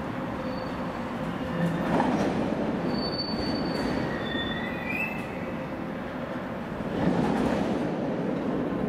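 Freight train of tank wagons rolling past, its wheels rumbling on the rails with short, high, thin squeals from the wheels. The rumble swells louder about two seconds in and again about seven seconds in.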